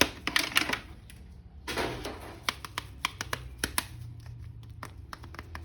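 A plastic action figure being handled: a run of small, sharp plastic clicks, with two brief rustles near the start and about two seconds in.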